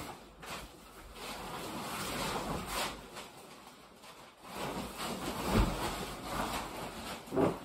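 Insulated fabric of a pop-up hub ice shelter rustling and shifting as its walls are pushed out, with a dull thump about five and a half seconds in and a sharper knock near the end.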